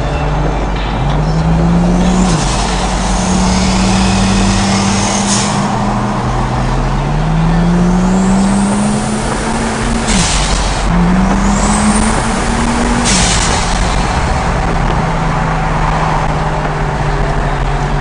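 Ford Falcon XR6 Turbo's turbocharged 4.0-litre inline-six heard from inside the cabin, pulling hard under boost. The revs climb with a rising turbo whistle, and the pulls end about ten and thirteen seconds in with a sudden drop in revs and a sharp blow-off valve hiss. After that it cruises at steady revs.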